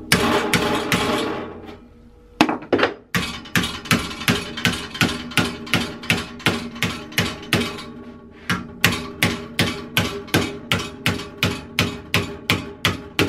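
Planishing hammer striking the edge of a steel sheet over angle iron in quick, even downward blows, about four a second, folding the lip over; each blow carries a ringing metallic note. The tapping pauses briefly about two seconds in and again about eight seconds in.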